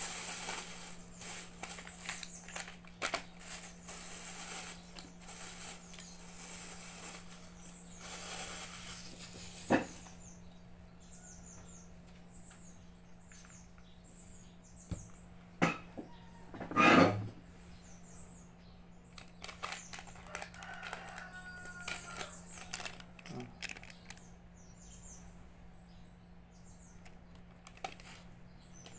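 Clear plastic bag crinkling and rustling in the hands for about the first ten seconds. After that, small birds chirp repeatedly in the background, with a single loud knock about 17 seconds in. A steady low electrical hum runs underneath.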